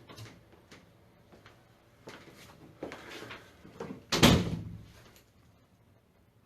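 A door shutting with one loud thump about four seconds in, preceded by a few smaller knocks and rustles.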